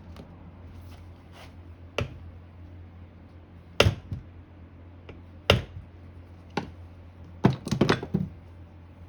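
Sharp metal clicks and knocks from hand tools working on the motor's stuck screw: single ones spread out, two louder knocks in the middle, and a quick run of them near the end.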